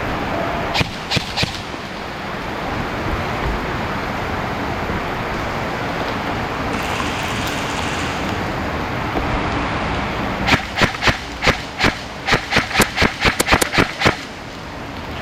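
Airsoft guns firing single shots: three sharp cracks about a second in, then a run of about a dozen, coming faster, over steady rushing noise.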